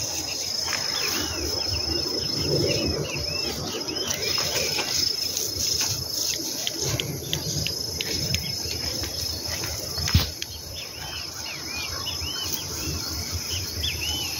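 Insects shrilling steadily in one thin high tone, with many short arching chirps repeating over it. Under them, tall grass rustles and brushes as someone walks through it, and there is one sharp knock about ten seconds in.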